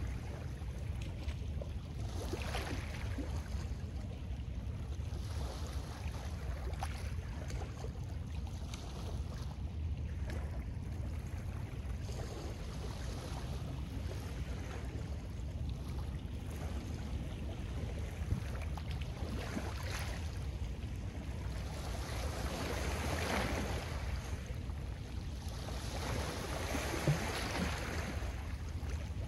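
Small lake waves washing and lapping onto a stony shore, swelling and falling back every few seconds, over a steady low rumble of wind on the microphone.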